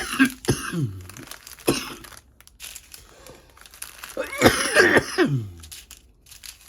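A man coughing in fits: several coughs in the first two seconds, then a longer, louder coughing fit about four seconds in.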